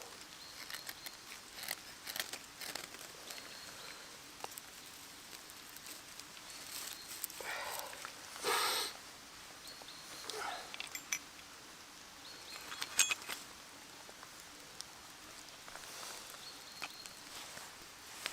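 Handling, rustling and short scraping sounds while trying to light a Vaseline-smeared cotton wool ball as fire tinder. There are scattered small clicks and a few brief scrapes, the loudest about eight and a half seconds in.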